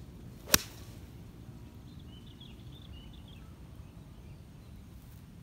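A single sharp crack, about half a second in, as a Callaway Apex Pro iron strikes a golf ball on a full swing. Birds chirp faintly a couple of seconds later over a low outdoor background.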